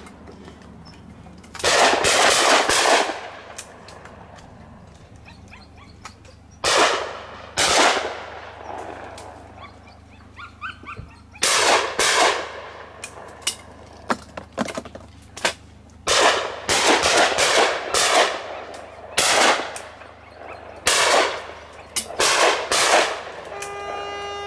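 Shotguns firing at clay targets: many shots at irregular intervals, some in quick pairs and runs, some nearer and louder and some fainter, each with a short echo. Near the end a horn sounds one long held note.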